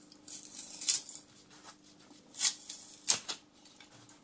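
Thin aluminium wall of a telemetry transmitter's cylindrical housing being torn open and peeled back in a strip, heard as short bursts of metal tearing and scraping: a cluster in the first second, then two sharper ones about two and a half and three seconds in.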